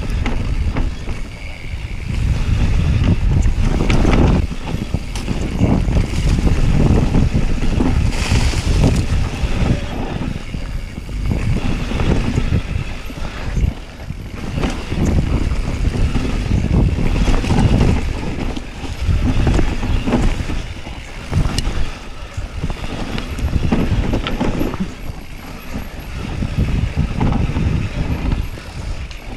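Wind buffeting an action camera's microphone on a fast mountain bike descent, over tyres running on a dirt trail and the bike rattling and knocking over bumps.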